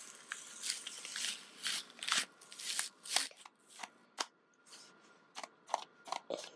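Hands handling a microSD memory card and a small plastic action camera: an irregular run of quiet plastic rustles and clicks, busy at first and sparser in the second half.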